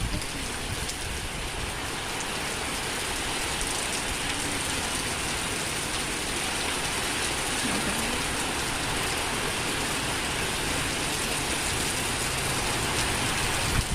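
Rain pouring steadily in a strong wind, a dense, even hiss that holds the same level throughout, with an uneven low rumble underneath.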